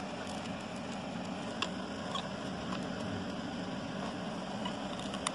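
Steady background noise, with a few faint clicks of thin card as a small paper box is folded together by hand.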